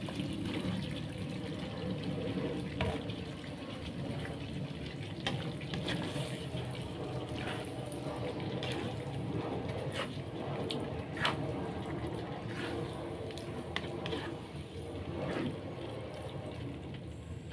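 Young jackfruit pieces being tipped into a pot of simmering spiced broth and stirred: a steady wet sloshing with scattered knocks of the spoon against the pot.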